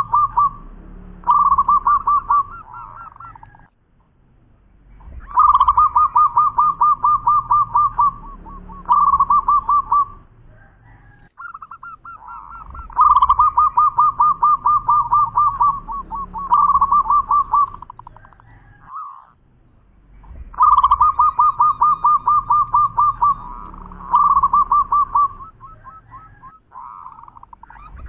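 Zebra dove (perkutut) singing: bouts of rapid staccato cooing notes, each a long run followed by a few shorter phrases. The song repeats about every seven or eight seconds, with short pauses between bouts.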